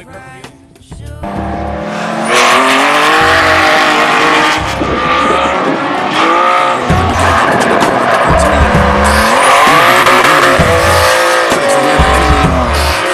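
BMW E36 drift cars sliding sideways in tandem: engines revving up and down over tyre squeal, starting about a second in, with music underneath.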